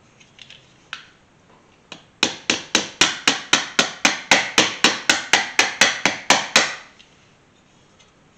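Flat-tip body hammer tapping a dent out of a thin, soft-metal front-end trim piece from a 1981 Chevy C10, laid on a soft wood block. A few light taps, then a steady run of about twenty quick taps, roughly five a second, each with a short metallic ring, before the hammering stops.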